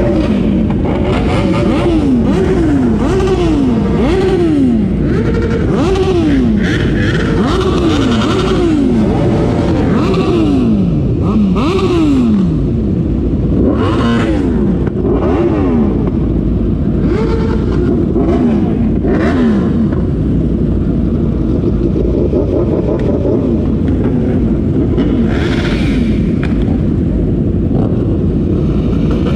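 A group of sport-bike engines idling and pulling away at low speed, with riders blipping their throttles over and over, each rev dropping quickly back down. The blips come about once a second at first and thin out in the second half.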